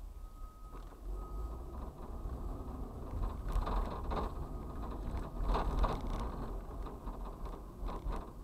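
A vehicle driving through city traffic, heard from inside the cab: a steady low engine and road rumble, with a cluster of rattles and knocks from the cab about halfway through.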